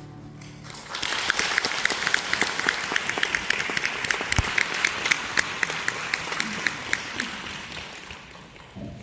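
The last held chord of a choral piece dies away, then an audience applauds from about a second in, the clapping thinning out near the end.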